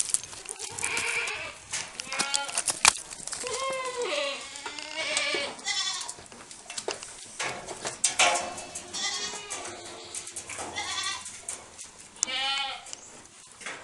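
Saanen goats bleating repeatedly, one wavering call after another, with a single sharp knock about three seconds in.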